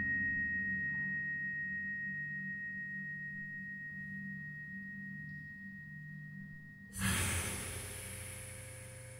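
Baritone saxophone with live electronics: a sustained low drone with a slow pulsing beat and a thin high tone above it, slowly fading. About seven seconds in, a sudden loud breathy rush of air cuts in and dies away.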